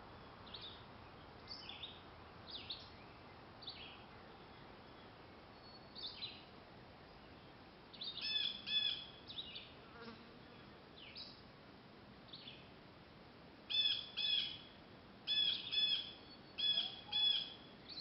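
Small birds chirping: scattered short, high chirps, then louder doublet call notes with a ringing, several-pitched tone about halfway through and repeated several times in the last few seconds, over a faint steady hiss.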